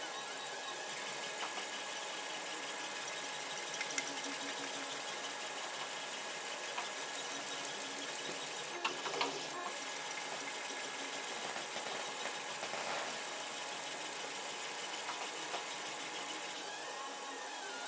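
3D printer's stepper motors running mid-print: a steady mechanical hum with a faint whine, and tones that sweep up and down in arcs near the end as the head moves. A short cluster of light clicks about nine seconds in.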